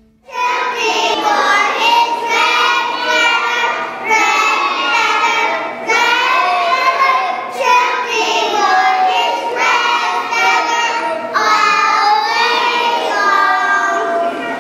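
A group of young children singing a song together, phrase by phrase with short breaks between the lines.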